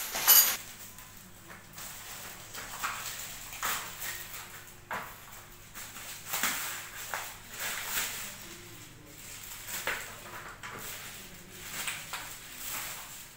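Clear plastic bag crinkling and rustling in irregular bursts as it is pulled off a new plastic toilet seat, with a sharper handling knock just after the start.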